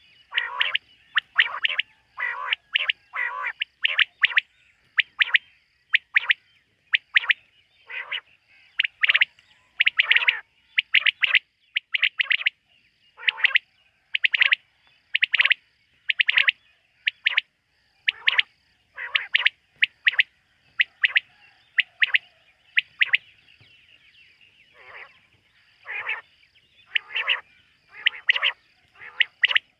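Quail calling at night: a long run of short, sharp call notes, often in quick pairs or small clusters, repeated many times. A faint, evenly spaced higher tick sounds about once a second behind them.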